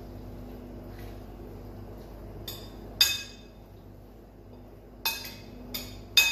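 Metal spoon clinking against the side of a glass mixing bowl while tossing a salad: about five sharp, ringing clinks, the loudest about three seconds in and a quick cluster near the end.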